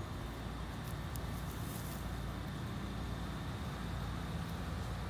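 Steady low rumble of outdoor background noise, with a faint steady high tone above it.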